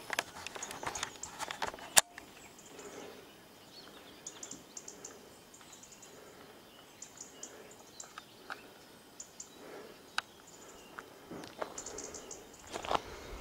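Quiet rural outdoor ambience with scattered clusters of short, high chirps. A few clicks and handling knocks come in the first two seconds, and louder scuffs near the end.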